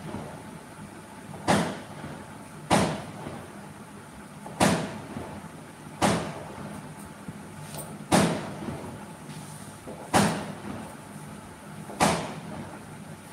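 A series of seven sharp bangs or knocks, each dying away over about half a second, coming irregularly every one to two seconds.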